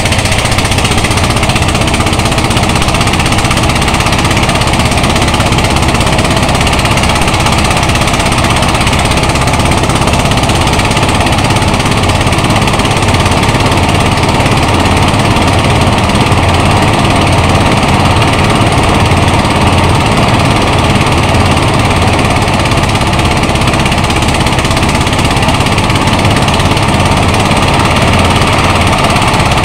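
Portable engine-driven rice thresher running steadily under load as rice stalks are fed into it, a loud, unbroken machine sound.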